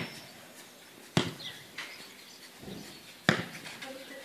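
A football struck by players' feet: two sharp thuds, about a second in and again some two seconds later, as it is kicked back and forth in a game of foot volleyball.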